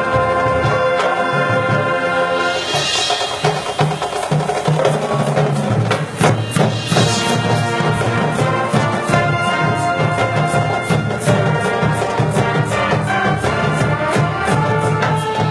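High school marching band playing full out: wind chords held over the drumline, with two crashes about three and seven seconds in, and a steady driving drum beat from about six seconds in.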